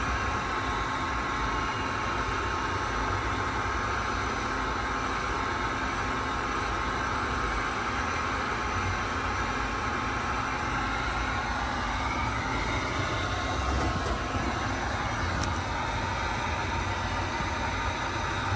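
A machine running steadily: an even rushing noise with a constant thin whine over a low rumble, unchanging throughout.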